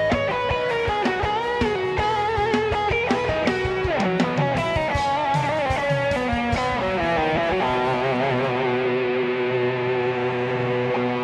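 Live band with a lead electric guitar playing wavering, bending melodic lines over drums, with a falling glide about four seconds in. About seven seconds in the drums drop out and the band holds a long sustained chord.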